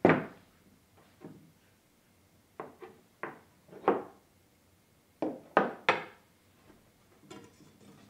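Irregular knocks and clunks of hard objects being handled and set down on a work surface, about ten in all, the loudest right at the start: the circular saw and its supplied parts being picked up and put down while they are checked over.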